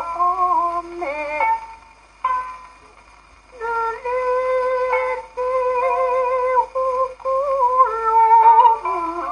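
Hauta played from a 78 rpm shellac record on a gramophone: a woman sings long notes with a wavering vibrato, accompanied by shamisen. The singing stops for about two seconds near the start, then comes back.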